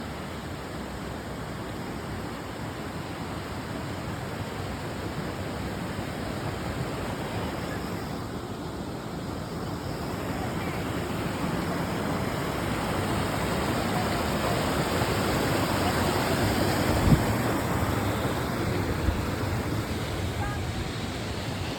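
Steady rushing noise of the Dudhsagar waterfall's falling water, slowly swelling louder past the middle. A brief sharp thump comes about 17 seconds in, and a smaller one a couple of seconds later.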